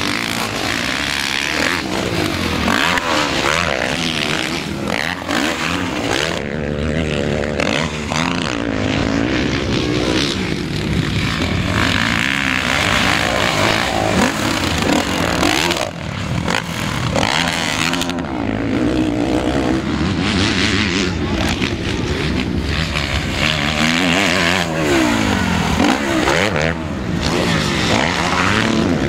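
Several motocross bike engines running together, idling and revving at the starting gate, their pitch rising and falling again and again.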